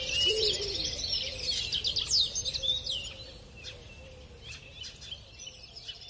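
Small birds chirping and twittering in quick high runs, fading down after about three seconds to a few scattered chirps.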